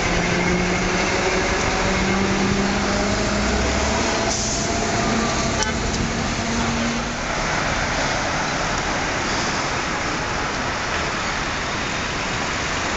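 City street traffic with an old tram running past: steady road noise with a held motor whine through the first half, and a short burst of noise and a click about four to six seconds in.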